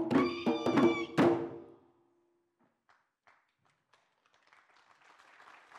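Drum-led percussion music ending with a last hard strike about a second in that rings briefly. After a moment of silence, faint applause begins near the end.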